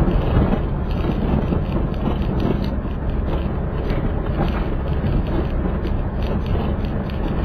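Car driving, with steady engine and road noise and frequent light clicks and rattles.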